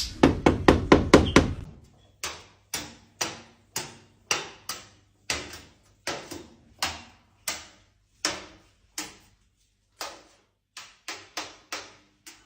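Sharp knocking on a hard surface: a quick flurry of raps at first, then single knocks about two a second that slow down and stop, then four quick knocks near the end.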